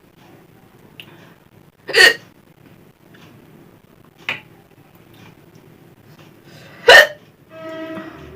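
A person hiccuping repeatedly: two loud, sharp hiccups about five seconds apart with fainter ones between, then a short pitched sound near the end. These are persistent hiccups that won't stop, which the eater puts down to eating dry food fast.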